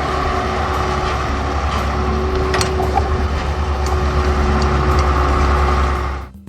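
Tracked excavator's diesel engine running steadily with a low rumble and a few clicks about two and a half seconds in. It cuts off shortly before the end.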